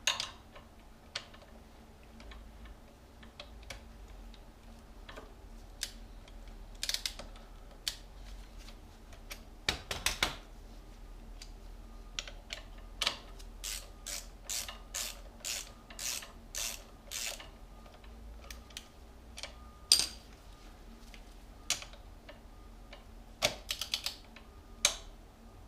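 Ratchet socket wrench clicking as the oil drain plug is screwed back in: scattered clicks at first, then an even run of about two to three clicks a second in the middle, then a few louder single clicks.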